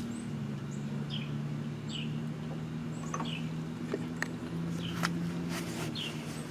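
Birds chirping in short down-slurred calls, about one or two a second, over a steady low hum, with a few light clicks in the second half.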